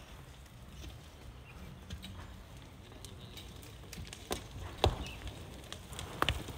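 A few sharp knocks of hard objects striking rock over a steady low rumble: two single knocks about four and five seconds in, the second the loudest, then two in quick succession near the end.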